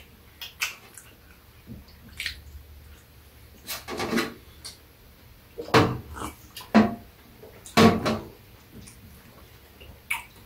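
Eating and drinking noises: sips and swallows from a mug, with several louder mouth sounds in the middle and small clicks of chewing around them.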